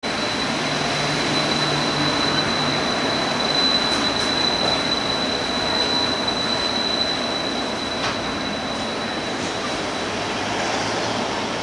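Taipei Metro Wenhu line rubber-tyred metro train running past as it pulls out of the terminal, a steady rolling noise with a thin, high whine over it that fades out about two-thirds of the way through.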